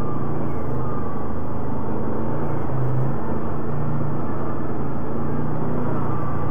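ATV engine running steadily at low speed in low range as the quad rolls slowly along the trail, with a low, even hum that wavers slightly in pitch.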